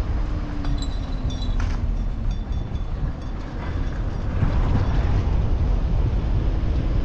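Car driving along a road: a steady low rumble of road and wind noise, with a faint tone that slowly falls over the first couple of seconds and a few faint high squeaks and clicks.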